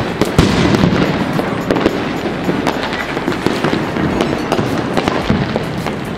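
Fireworks and firecrackers going off all around in a dense, near-continuous crackle of many sharp pops.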